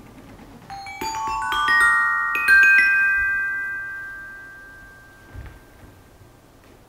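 Metallophone (tekkin) struck with mallets: a quick run of about a dozen notes climbing upward over two seconds, each metal bar ringing on and slowly dying away.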